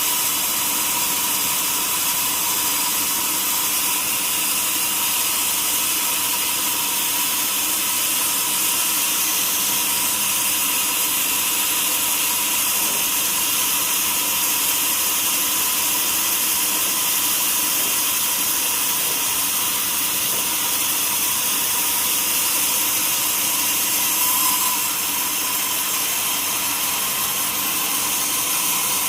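Sawmill saw running steadily, a constant high hiss with a steady whine under it.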